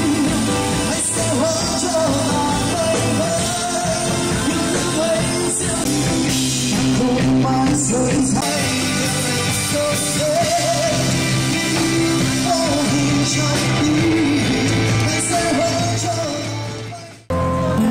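Upbeat rock-style song with a singing voice. It fades out quickly near the end and cuts straight into a different guitar piece.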